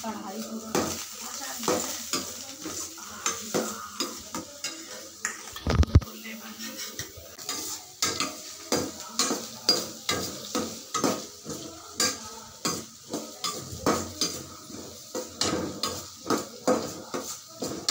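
A metal spoon scraping and clanking against a steel kadai as chopped onions and green chillies are stirred in sizzling hot oil, in quick strokes of about two a second. There is a single loud thump about six seconds in.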